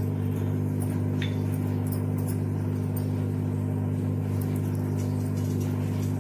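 Steady electrical hum of an induction cooktop running under a pressure cooker, with a few faint crackles from cumin seeds and green chillies frying in ghee.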